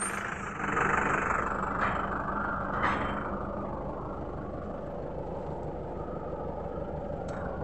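Tata SFC 407 truck's diesel engine idling steadily, with a few brief clicks over the hum.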